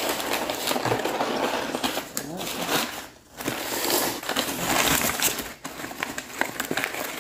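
Crumpled brown kraft packing paper crinkling and rustling as it is pulled out of a shipping box by hand, in bursts with brief pauses about three seconds in and again near the end.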